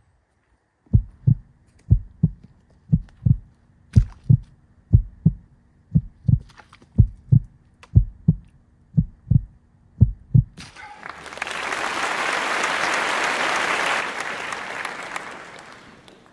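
Heartbeat sound effect: paired low thumps, lub-dub, about once a second for some ten beats. Then a swell of applause rises, holds and fades away over about five seconds.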